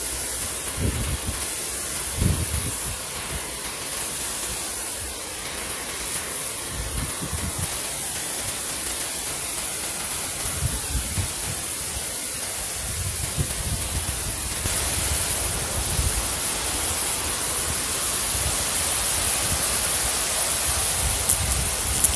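Riverside ambience: a steady rushing noise like flowing water, with a constant high-pitched hiss and irregular low rumbles of wind on the microphone. The rushing grows a little louder and brighter about two thirds of the way in.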